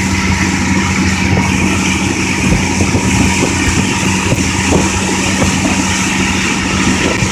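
Motorboat engine running steadily under way while towing, with water rushing in the wake.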